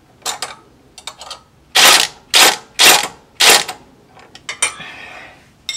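Ryobi ONE+ HP brushless cordless impact tool running in four short, loud bursts about half a second apart as it drives a socket on a control-arm bolt, with a few light metal clicks before and after.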